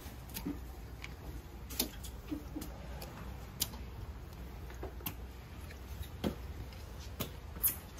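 Footsteps climbing stairs: irregular sharp taps of shoes on the steps about a second apart, over a low steady hum.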